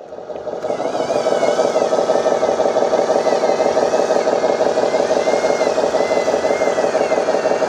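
Remote-control model dump truck running: a steady mechanical drone with a fast, even pulse that builds up over the first second, and a higher whine that wavers up and down as the throttle changes.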